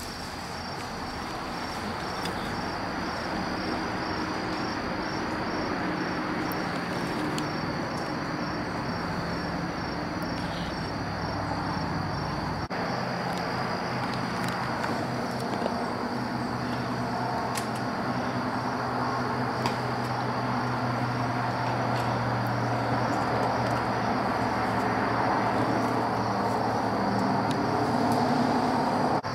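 Crickets and other insects trilling steadily, over a low engine-like drone that slowly grows louder.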